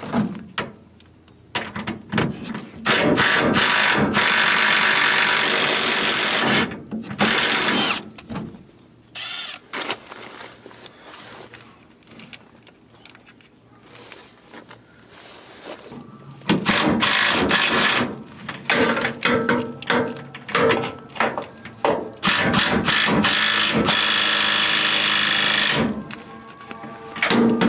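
Milwaukee cordless impact wrench running in several bursts of a few seconds each, with short clicks between them, as it undoes the nut on a truck's rear sway bar link.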